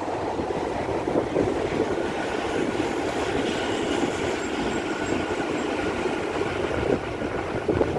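Taichung MRT Green Line two-car train passing at close range, its steel wheels running on the rails in a steady rumble, with a faint steady whine from about the middle on.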